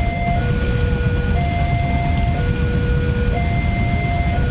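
Railroad level-crossing warning alarm sounding from the loudspeaker on the crossing post: an electronic two-tone signal switching between a higher and a lower tone about once a second. Under it is the steady low rumble of a container freight train rolling through the crossing.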